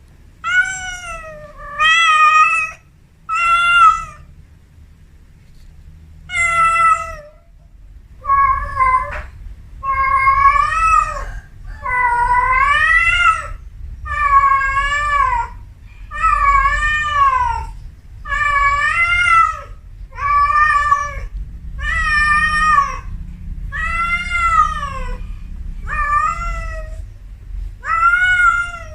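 A kitten meowing over and over in high-pitched calls, each rising then falling in pitch, about one every second and a half, with a short pause early on.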